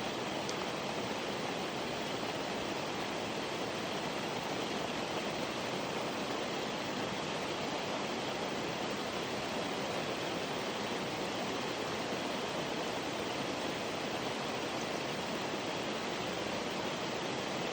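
Steady rainfall, an even hiss of falling rain with no separate drops or pauses.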